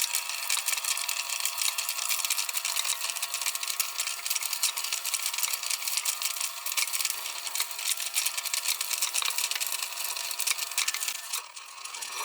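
Small 12 V DC motor of a homemade micro grain grinder running, a steady whine with dense rattling over it, dipping briefly near the end before the whine settles at a slightly different pitch.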